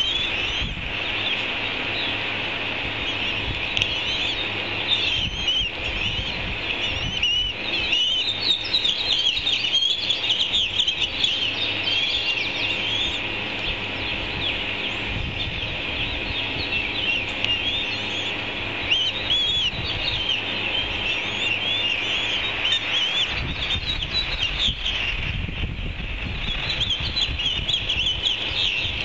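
Ospreys calling at the nest: rapid, high-pitched chirps repeated throughout, over a low rumble.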